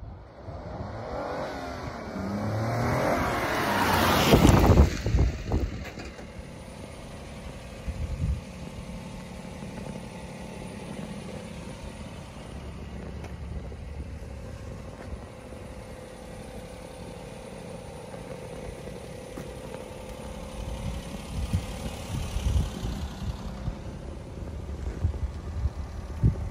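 Daihatsu Hijet kei truck's twin-cam 12-valve three-cylinder engine running at a steady idle, after a loud rising vehicle sound that swells to a peak about four seconds in and cuts off. A few short knocks near the end.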